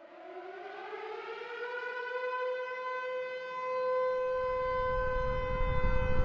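Air-raid-style siren wail, rising in pitch for about two seconds and then holding one steady note as it grows louder. A low rumble builds underneath it from about four seconds in.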